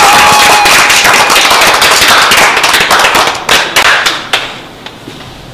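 A small group of people clapping their hands: fast, dense applause that dies away about four seconds in.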